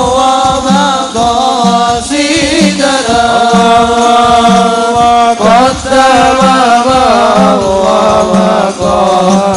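A man singing an Arabic sholawat solo into a microphone, drawing the words out in long, ornamented phrases, over a steady beat of hadrah frame drums.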